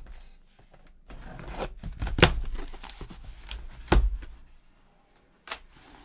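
Cardboard box being torn open: packing tape ripping and flaps pulled back, with rustling and two sharp knocks about two and four seconds in.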